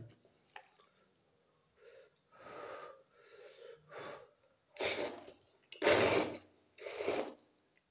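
Instant noodles slurped from a fork: a few soft slurps, then three loud ones about a second apart near the end.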